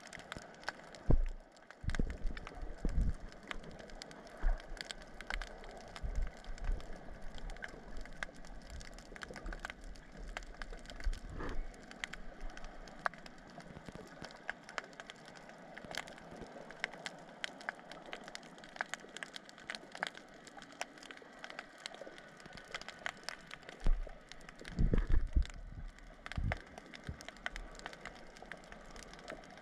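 Underwater crackling picked up by a submerged camera: a dense, constant patter of sharp clicks, with a few heavier low thumps about a second in and again near the end.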